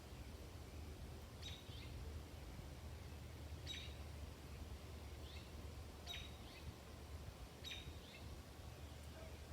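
A songbird giving short, sharp chirps, four of them about two seconds apart, each followed by a fainter call, over a steady low rumble of suburban background noise.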